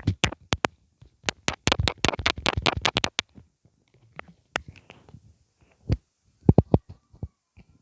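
Mascara wand worked in the tube of a very creamy mascara, making quick, wet clicks: a fast run for about two seconds, then a few scattered ones.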